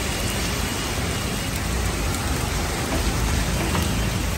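Heavy rain falling steadily on a paved city street, a continuous hiss with a few sharper drips.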